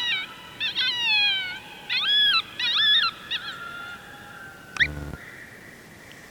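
Electronic predator call playing a series of short, wavering, high-pitched animal cries that rise and fall in pitch, used to lure coyotes. Near the end the cries stop, and a sharp click with a brief low buzz follows.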